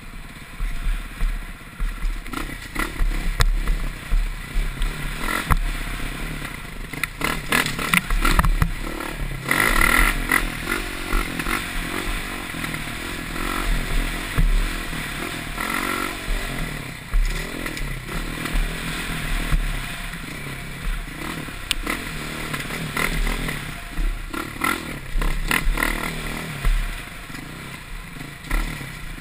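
Dirt bike engine revving up and falling back again and again as the bike is ridden hard along a rough trail, heard from a helmet-mounted camera, with the clatter and knocks of the bike over bumps and a deep rumble on the microphone.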